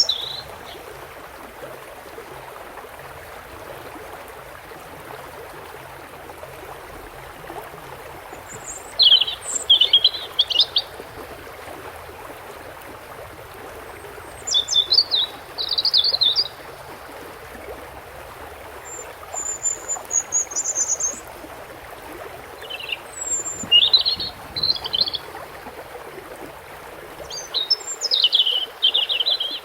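A songbird singing short bursts of quick, high twittering notes, five phrases a few seconds apart, over a steady rush of running water.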